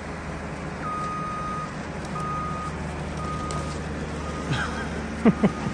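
A vehicle's reversing alarm beeping at a steady pitch about once a second over an engine's steady low rumble. Two short sharp sounds come near the end.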